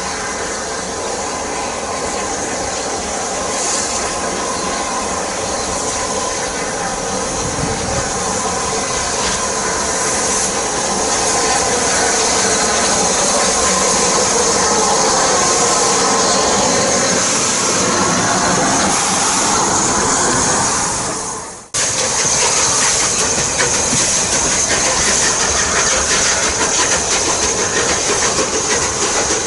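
Rebuilt Southern Railway Merchant Navy class 4-6-2 steam locomotive 35028 'Clan Line' running through at speed with its train, steam hiss and rolling noise growing louder as it approaches and passes. After an abrupt cut about two-thirds of the way through, the carriage wheels clatter on the rails as the train runs away.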